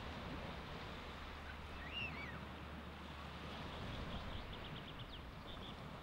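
Baltic Sea surf washing on a sandy beach, a steady rushing noise with a low rumble underneath. A bird gives a short rising-and-falling call about two seconds in, and a quick run of chirps follows between about four and five seconds in.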